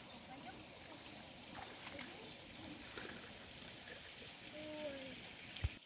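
Steady hiss of flowing spring water, with a short falling tone about four and a half seconds in and a single sharp thump near the end.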